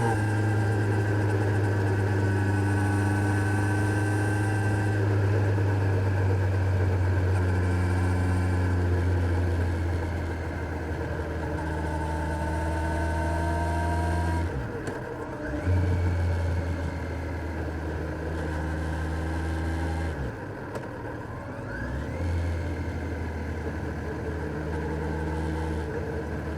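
Kawasaki Z900 inline-four motorcycle engine running steadily under riding load, its pitch holding or creeping up slowly. The throttle is rolled off and back on twice, about halfway through and again about three quarters in, the note dropping briefly each time.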